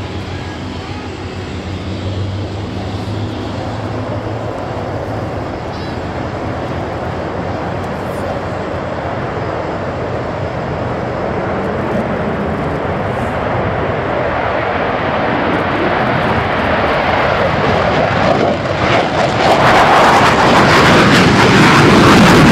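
JASDF F-15J Eagle's twin F100 turbofans at full afterburner for takeoff: a jet roar that builds steadily and is loudest near the end, turning rough and crackling as the fighter climbs out past.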